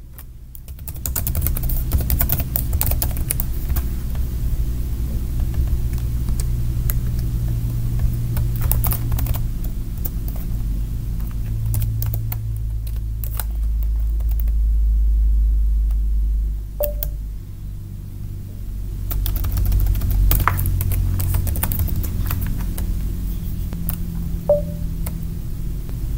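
Computer keyboard typing in scattered bursts of keystrokes, over a steady low hum.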